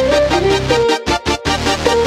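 Electronic background music: a melody moving over a steady low bass, with short breaks about a second in.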